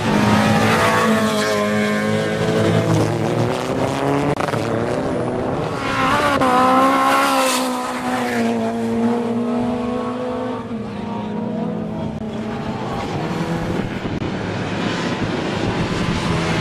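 Racing car engines revving hard, the pitch climbing and dropping again and again as the cars accelerate out of corners and back off.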